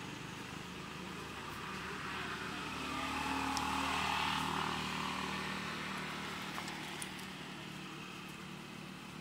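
A motor vehicle's engine passing at a distance: a low hum that swells to its loudest about four seconds in, then slowly fades.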